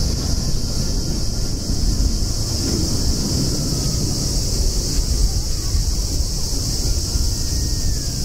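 Twin-engine UPS Boeing 767 freighter's jet engines rumbling at takeoff power as it climbs steeply away, a deep, steady roar with a steady high hiss over it.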